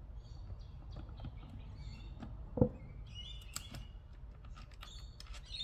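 Small clicks of a screwdriver working screws out of a Subaru SVX instrument cluster's circuit board, with one sharper knock about two and a half seconds in. Birds chirp briefly in the background in the second half.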